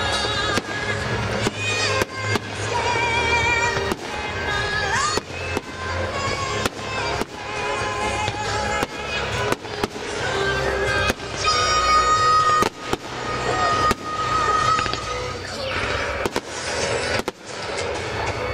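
Aerial fireworks going off in a steady string of bangs, about one or two a second, with music playing alongside.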